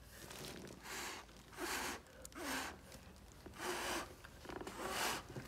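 A person blowing short puffs of breath onto wet acrylic pour paint, about five puffs roughly a second apart, to push the paint around and open up more cells.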